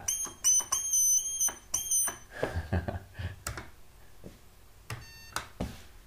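Lift-panel alarm button's electronic sounder going off in four short, high-pitched bursts over the first two seconds as the button is pressed, followed by a few clicks and one very brief beep near the five-second mark.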